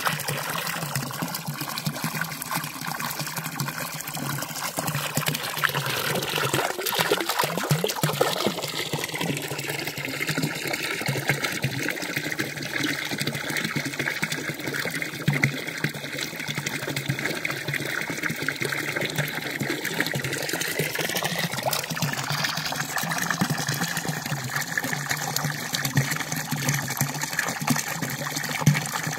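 Water running steadily from a village fountain's spout (Turkish çeşme).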